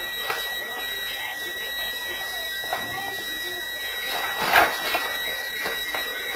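A steady, high-pitched electronic tone like an alarm buzzer, heard through a security camera's microphone, with scattered knocks and rattles; the loudest knock comes about four and a half seconds in.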